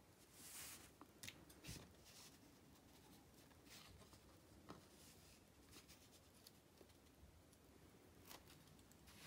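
Near silence with a few faint clicks and scrapes: a metal screw eye being twisted by hand into a canvas's wooden stretcher bar.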